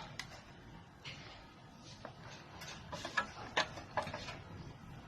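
Scattered light clicks and taps at an uneven pace, with a cluster of sharper ones in the second half.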